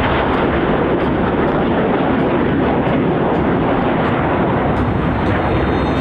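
Steady rushing jet noise from a formation of Aermacchi MB-339 jet trainers and their Rolls-Royce Viper turbojets.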